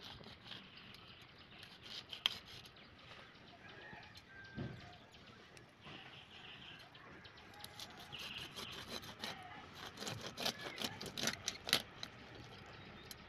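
A carp being cut on a boti, a fixed curved blade: faint scraping and rubbing of the blade against scales and flesh. Near the end comes a dense run of sharp clicks as the blade cuts through the belly and rib bones.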